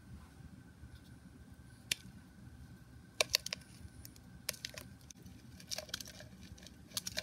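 Thin plastic deli cups being handled, with a hand reaching into one: scattered light clicks and short rustles of plastic, a few a second in small clusters.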